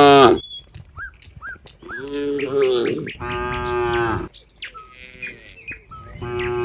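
Cattle mooing: several long moos one after another, one fading out just after the start, two in the middle and another starting near the end.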